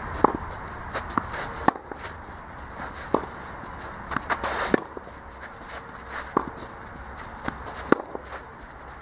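Tennis rally on a clay court: sharp pops of a racket hitting the ball, coming every second or two, with softer ball bounces and footsteps scuffing on the clay in between.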